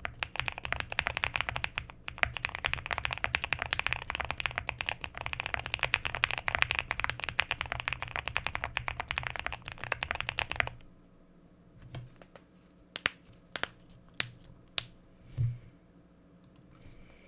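Fast, continuous typing on a QK65 custom mechanical keyboard with frankenswitches (Nixdork tops, Boba LT stems, Lilac linear bottoms), a POM plate, full foam and PBT keycaps. The typing stops suddenly about ten seconds in, leaving a few scattered single clicks.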